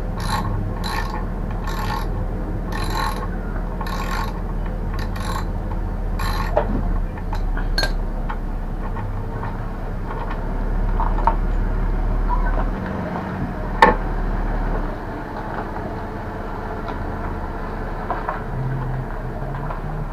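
Wrench turning the nut on a mobility scooter's wheel axle: short metallic rasps about once a second for the first six or seven seconds, then quieter metal handling noise with a single sharp click about two-thirds through.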